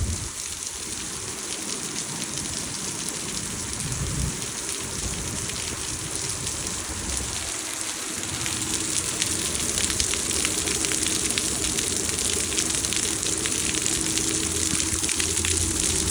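Heavy rain coming down, a dense patter of drops hitting surfaces, growing louder about halfway through.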